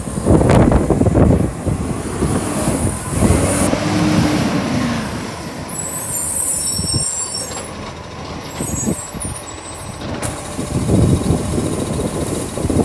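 Cleanaway garbage truck's diesel engine running, its pitch rising and falling once about three to five seconds in, with the release of its air brakes.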